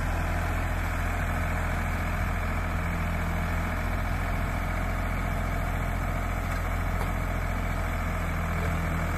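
Sonalika tractor's diesel engine running at a steady, constant speed, a low even drone with no change in pitch or load.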